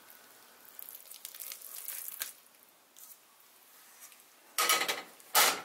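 Soft, thick Mysore pak mixture of ghee, besan and sugar syrup being scraped out of a nonstick pan into a glass dish: faint sliding and scraping at first, then two louder scrapes of the pan near the end.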